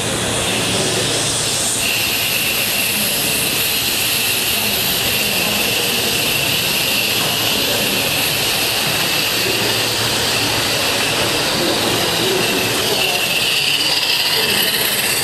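Live-steam garden-railway locomotive hissing steadily, with a brighter, higher hiss joining about two seconds in.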